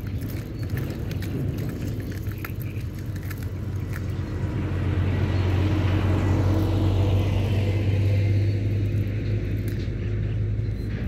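A motor vehicle passing by: a low engine rumble that swells to its loudest about halfway through, falls in pitch as it goes past, and then begins to fade.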